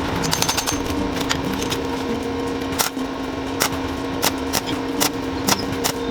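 Irregular sharp taps and clicks, a quick cluster near the start and then one every half second or so, over a steady low hum.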